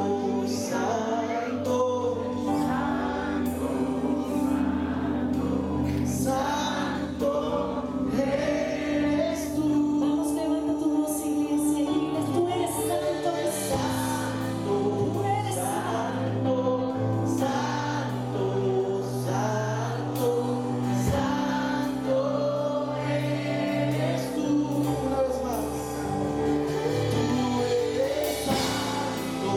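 Live Christian worship band playing a Spanish-language worship song: a male lead singer, backed by a female singer, over keyboard, electric bass and drums.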